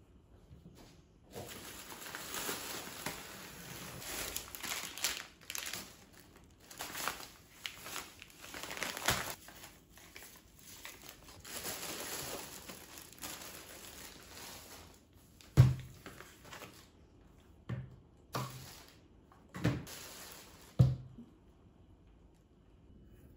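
Thin plastic grocery bag crinkling and rustling as items are pulled out of it, then about five dull thuds as groceries such as milk cartons are set down on a table.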